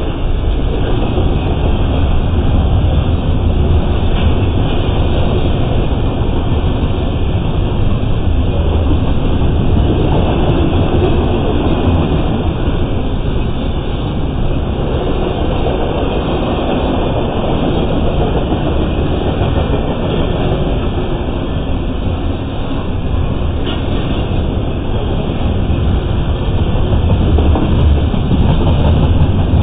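Double-stack intermodal well cars loaded with shipping containers rolling past: a loud, steady rumble of steel wheels on rail.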